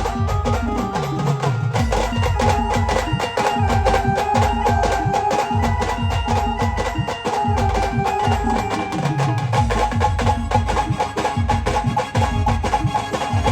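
Instrumental passage from a Marathi band-party song: fast, dense percussion under a held melody line, with a bass that slides down in pitch twice.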